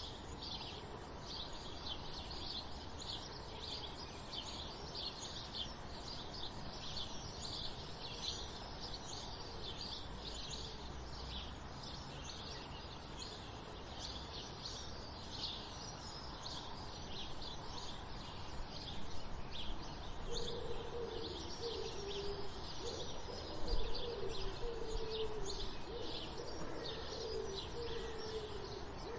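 Dawn chorus of sparrows chirping busily in many short, high notes over a steady background hiss. About twenty seconds in, a dove starts cooing in low, repeated phrases.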